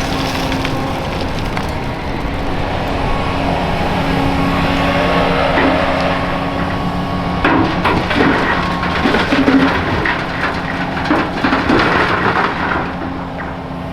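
Heavy diesel engine running steadily, with a rattling clatter of crushed concrete from about halfway through that lasts several seconds as the excavator bucket scoops or dumps its load.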